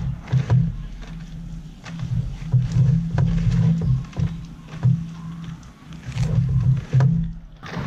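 Gloved hands kneading and squeezing soaked sticky rice mixed with gac fruit pulp in a banana-leaf-lined bowl: scattered soft clicks and rustles of grains, glove and leaf, over a low, uneven rumble.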